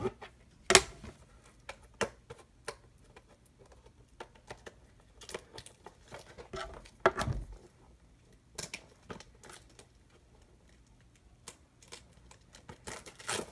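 Hands working at a cardboard trading-card hobby box sealed with security tape: irregular clicks, scrapes and short tearing sounds as the tape resists opening. The sharpest snaps come about a second in and again about seven seconds in.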